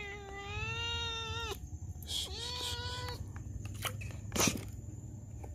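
A cat meowing: two long, drawn-out meows, the first about a second and a half, the second shorter, over a low steady rumble. About four seconds in comes a brief scuffing noise, the loudest moment.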